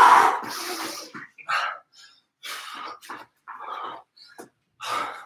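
A man breathing hard from exertion during a cardio exercise. A loud, forceful exhale at the start is followed by shorter puffs of breath about once a second.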